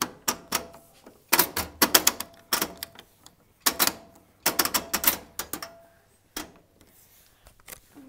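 Programme selector dial of a Beko WMB10W washing machine being turned by hand, clicking through its positions in several bursts of quick clicks over the first six seconds, then only a few scattered clicks.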